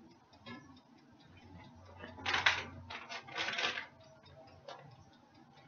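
Food packaging rustling in two short bursts, about two and three seconds in, among a few light taps and clicks.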